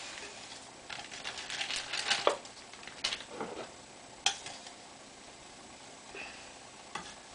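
Irregular light taps, clicks and rustles of a clear plastic cup being handled, with a sharper tap about four seconds in.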